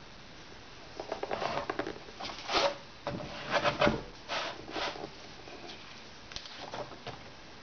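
A hand rubbing and sliding over the cloth cover of an old hardcover book and shifting the book on the table: a run of scuffing, rustling strokes with small clicks, with a soft thump about four seconds in and a few fainter rubs near the end. A low steady hiss lies underneath.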